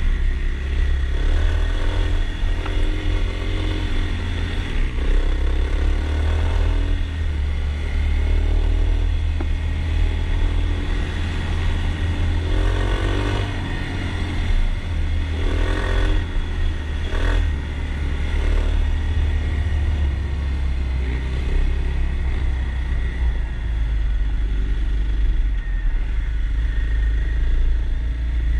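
Kawasaki KLX 300 dirt bike's single-cylinder four-stroke engine running under way on a rough trail, its revs rising and falling repeatedly as the rider works the throttle. A few sharp knocks and clatter from the bike over rough ground come in around the middle.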